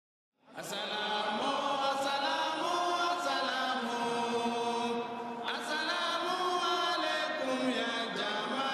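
Many voices chanting together in unison in long held notes, starting about half a second in, in two long phrases with a short break around the middle.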